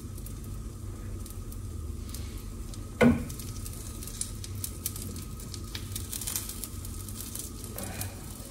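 Banana pancake batter frying in butter in a nonstick pan: a steady sizzle with small crackles and pops. One short, louder knock about three seconds in.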